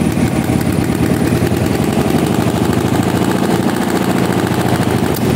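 1957 DMW Dolomite motorcycle's engine running steadily, with a rapid, even train of firing pulses.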